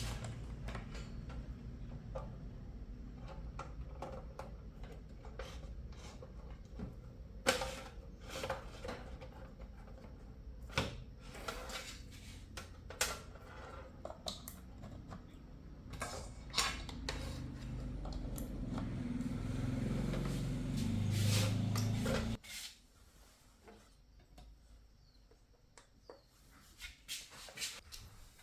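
Scattered clicks and knocks of small tools and parts being handled during bench repair work, over a steady low hum that cuts off suddenly about 22 seconds in.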